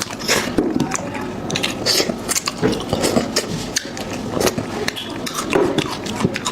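Close-up eating sounds of beef trotter being chewed: wet chewing, sucking and lip smacks, several irregular clicks a second.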